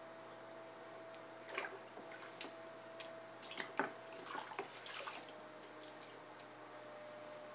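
Water splashing and dripping in a run of small irregular splashes, from a sponge being dipped and squeezed in the potter's throwing water, over the steady faint hum of the electric pottery wheel's motor.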